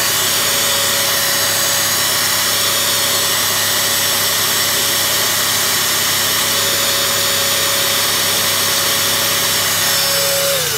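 Wagner Control Pro airless paint sprayer's electric motor and piston pump running steadily with a steady whine, drawing water on a test run of a unit that does not build pressure. It winds down with a falling whine at the very end as it is switched off.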